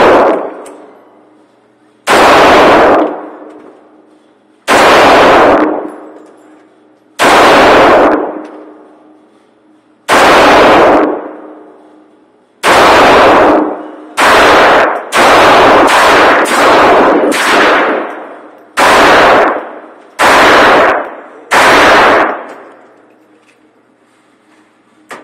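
Semi-automatic pistol fired about a dozen times, echoing down an indoor shooting range. The first shots come a couple of seconds apart, then a quicker string of four or five, then three more spaced shots. Each shot is very loud and rings on for about a second.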